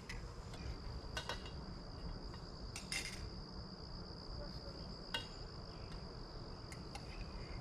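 An insect trilling steadily at a high pitch, with a few light clinks and taps of cups and utensils spread through it.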